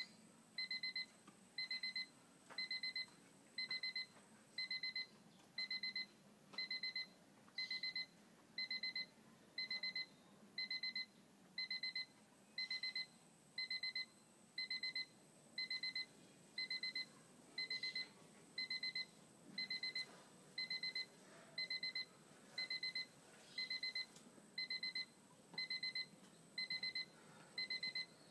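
Electronic timer beeping steadily, one short high beep about every second. This is most likely a boxing round timer sounding during the rest between rounds.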